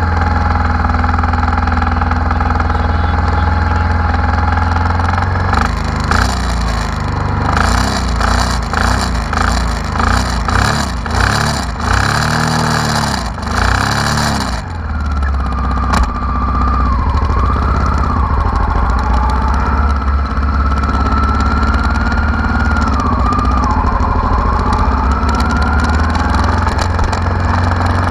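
Honda Africa Twin RD04's 742 cc V-twin engine idling, then revved up and down repeatedly for about ten seconds before settling back to idle. A high wavering whine runs over the idle in the second half.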